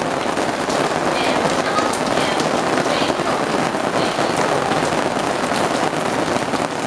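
Heavy rain falling steadily onto hard surfaces, a dense, even patter of many small drop impacts.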